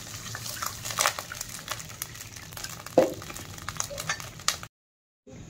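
Hot oil tempering of mustard seeds and green chillies crackling and sizzling in a kadhai, with water just poured in; one louder knock comes about three seconds in. The sound cuts off abruptly near the end.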